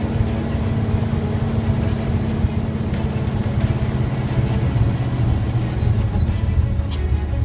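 A 1966 Chevrolet C10 pickup's engine running steadily under way, heard from inside the cab.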